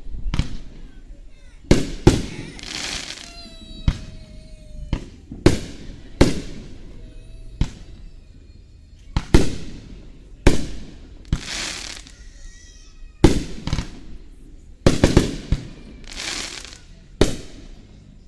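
Aerial fireworks shells bursting in quick succession, about fifteen sharp booms over the stretch, several followed by a hissing crackle as the stars burn out.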